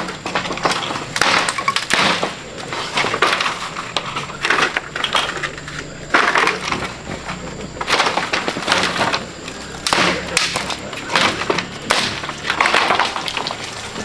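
Bamboo pole being split and bent by hand, its fibres cracking and splintering in repeated bursts about once a second.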